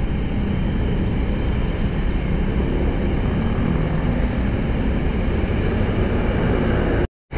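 Steady wind rumble on the microphone mixed with the scooter's engine and road noise while riding in traffic. The sound cuts out completely for a moment near the end.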